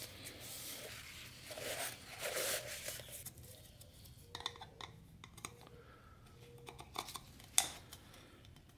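A shop towel rubbing and wiping over a plastic oil filter housing and cartridge, then faint clicks and taps as the plastic housing is handled, with one sharper click near the end.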